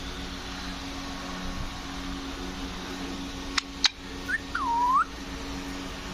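Green parrot whistling: two very quick, sharp whistles about three and a half seconds in, then a short chirp and a longer whistle that dips in pitch and rises again.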